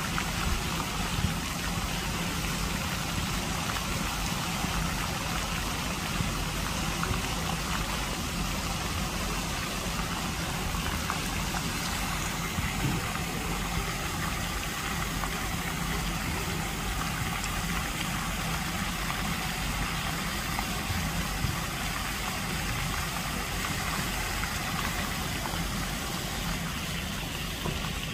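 Lake fountain jets splashing steadily onto the water surface, an even hiss, with a low steady hum underneath.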